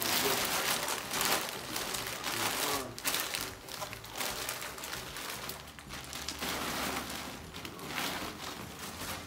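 Gift wrapping paper and a plastic shopping bag crinkling and rustling as presents are unwrapped by hand, in an uneven run of rustles.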